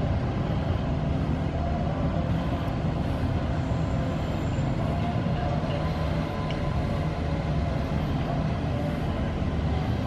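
A boat's engine running steadily with an even low hum, heard from on board.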